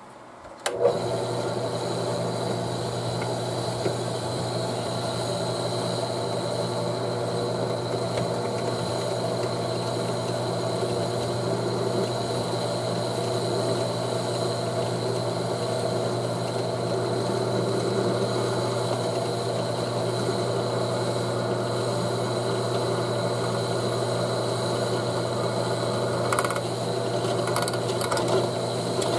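Drill press starting up about a second in and running steadily with an even motor hum and a high whine, its bit drilling a small hole into a FAL rifle gas plug held in the vise. A couple of brief clicks near the end.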